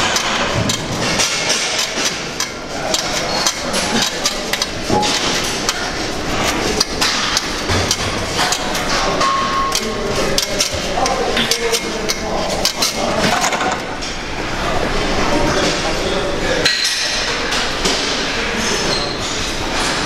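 Weight-room clatter: frequent, irregular metallic clanks and clinks of weight plates and machines, with voices talking in the background.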